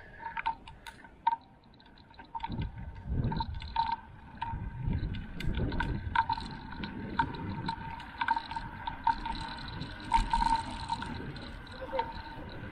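Bicycle ride noise on a bike-mounted action camera: uneven low wind and road rumble that picks up about two and a half seconds in, over a faint steady whine and scattered light clicks.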